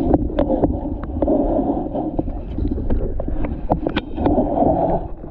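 Muffled underwater rumble of moving water picked up by a submerged camera, with many scattered sharp clicks and ticks.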